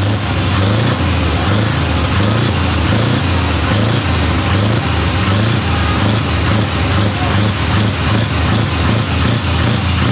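Scania V8 diesel truck engine idling through its open side exhaust pipe: a steady, loud, lumpy low burble with no revving.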